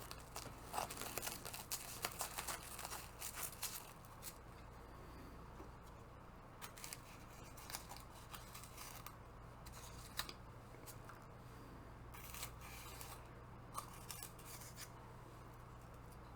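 Faint handling sounds from unpacking: light clicks, snips and rustling, busiest in the first four seconds and then only now and then.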